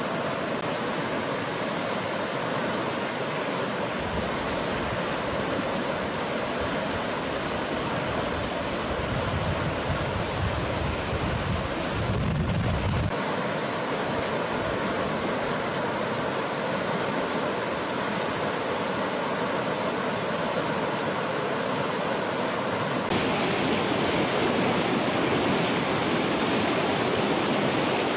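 River rapids rushing over rocks: a steady, even roar of white water. A deeper rumble swells in the middle and stops abruptly, and the rush turns a little brighter and louder near the end.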